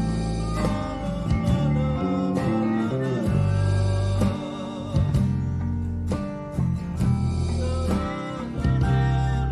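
A man singing a ballad in Japanese over a small band of acoustic guitar, electric guitar, electric bass and keyboard.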